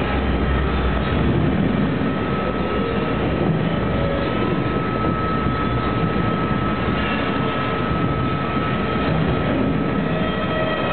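Simulated tornado storm effects in a theme-park show: a loud, steady roar of wind and rumble, with a thin steady high tone above it.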